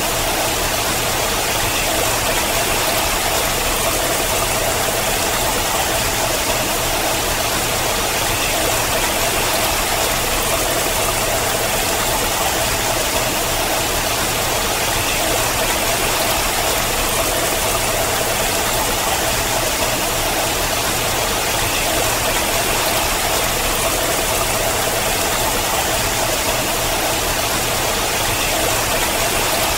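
Water falling in thin streams down a rock face and splashing, a steady, even rush that does not change.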